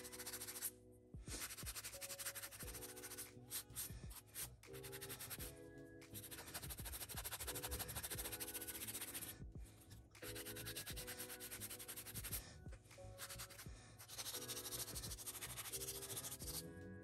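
Acrylic nails being filed, a dry rasping scrape in many quick strokes with brief pauses, over background music.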